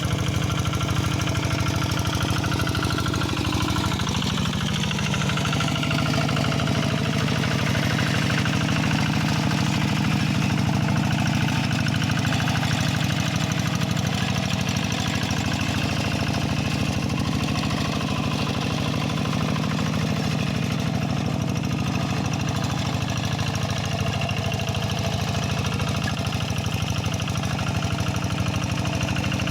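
Kubota RD85 DI single-cylinder diesel engine of a two-wheel hand tractor running steadily under load while plowing a wet rice paddy.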